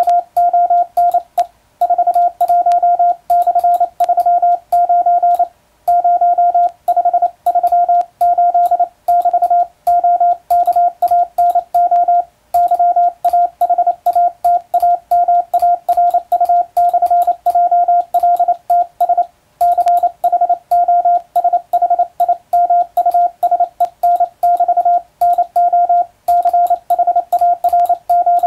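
International Morse code sent on an electronic keyer: a single steady beep keyed on and off in fast, evenly timed dots and dashes, with brief gaps between letters and a few longer pauses between words. Faint clicks mark the keying.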